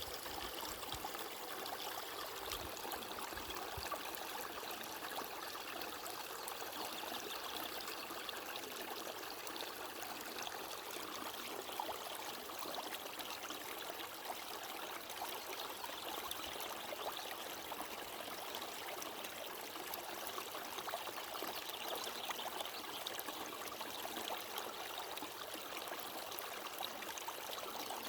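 Water flowing steadily, a continuous even rush like a small stream, with a few soft low thumps in the first few seconds.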